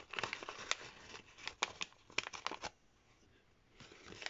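Folded paper origami boat crinkling and crackling in a string of sharp rustles as fingers push open and round out its underside to make an air pocket, with a pause of about a second before the rustling starts again.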